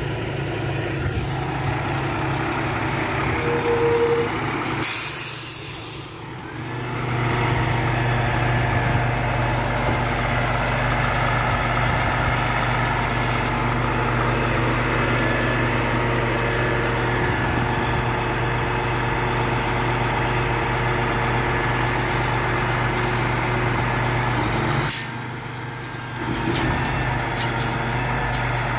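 Diesel engine of a tree-service grapple truck running steadily, with a sharp hiss of air about five seconds in and a shorter one near twenty-five seconds, typical of its air brakes.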